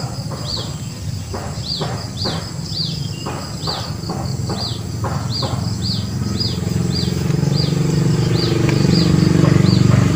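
Outdoor garden ambience: a short, high, falling chirp repeated about twice a second, over a low rumble that grows louder through the second half.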